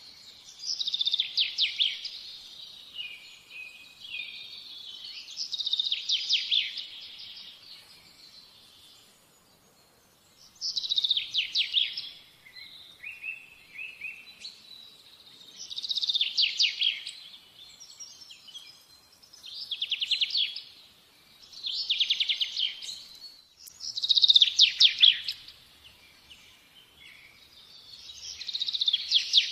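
A songbird singing: short phrases of rapid trilled notes, repeated every few seconds with brief pauses between.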